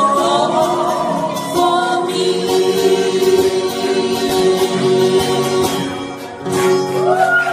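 Live acoustic pop performance: several strummed acoustic guitars with a group of voices singing together in harmony, holding long notes. The sound dips briefly about six seconds in, then comes back in full near the end.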